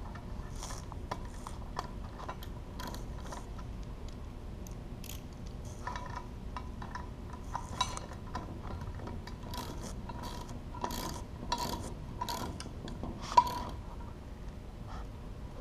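Ratchet wrench with a 10 mm socket clicking in short, irregular runs as nuts are run down, fastening a winch contactor to its mounting plate, with one sharper metal click near the end.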